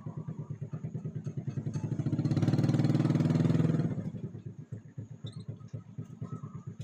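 An engine running with a fast, even pulse, swelling loudest about two to four seconds in and then dropping back.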